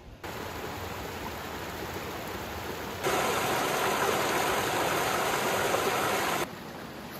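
Creek water rushing over boulders in a small cascade: a steady rush that grows louder about three seconds in, then falls back to a softer flow about three seconds later.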